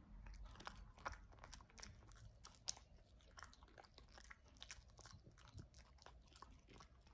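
A cavoodle chewing and crunching pieces of chestnut: a quick, irregular string of small crunches.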